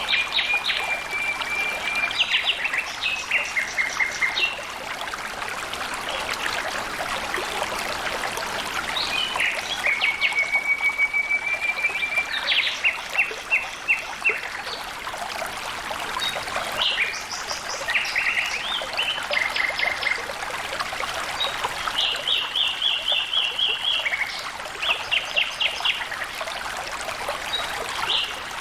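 Flowing stream water trickling steadily, with a songbird singing repeated phrases over it: each phrase a rapid, even trill followed by a quick string of higher notes, heard several times.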